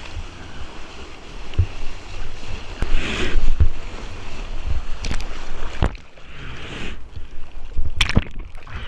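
Ocean surf water splashing and sloshing, with wind rumble on the microphone and several sharp knocks and splashes, the loudest pair near the end.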